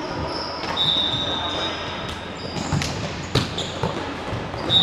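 Futsal match play on an indoor court: a few sharp ball strikes, the louder one about three and a half seconds in, and a high thin squeak, all echoing in a large sports hall.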